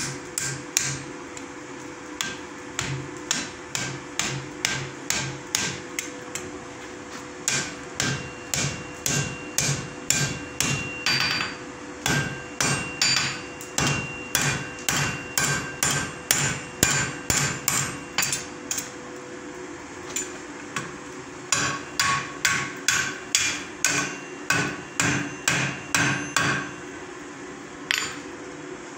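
Hand hammer striking red-hot iron on a steel anvil in a steady run of blows, about two to three a second, with the anvil ringing after the strikes. The hammering stops briefly three times.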